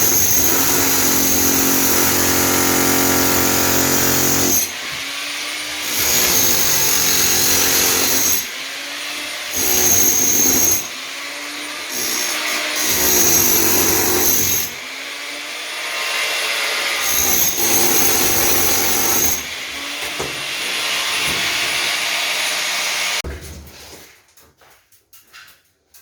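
A handheld electric power tool run in about five bursts of a few seconds each. Its motor whine eases off and winds down between trigger pulls, and it stops near the end.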